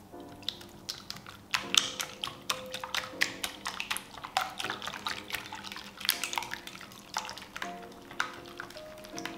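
Silicone whisk beating thin, runny pancake batter in a glass bowl, mixing an egg in: quick, irregular wet clicks and splashes. Soft background music plays underneath.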